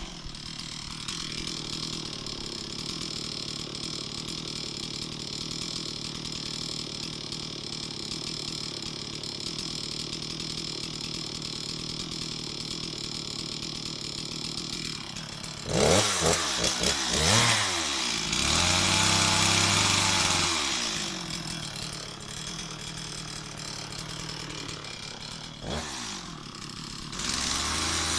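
Stihl MS 260 two-stroke chainsaw idling steadily, then blipped up to high revs a few times about halfway through. It is held at full revs for a few seconds, drops back to idle, and is revved again near the end.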